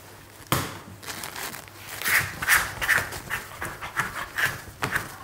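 Bread dough worked by hand on a wooden worktable: one loud slap of dough on the table about half a second in, then a quick, irregular run of shorter slaps and smacks as the dough is lifted, slapped and folded.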